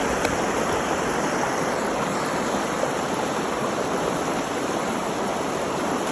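Creek water rushing over rocks in small rapids, a steady even rush.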